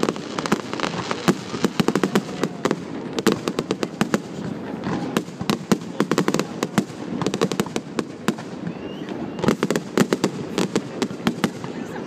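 Aerial fireworks bursting overhead: many sharp pops and crackles in quick, irregular succession, thickening into a dense flurry about nine and a half seconds in.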